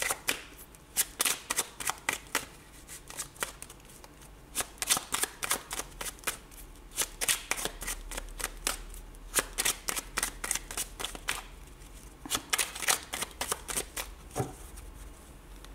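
An oracle card deck being shuffled by hand, overhand: repeated runs of quick card flicks, each run lasting about a second, with short pauses between.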